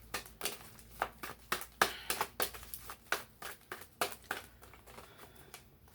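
Tarot cards being shuffled and handled: an irregular run of short, soft clicks and snaps, a few a second.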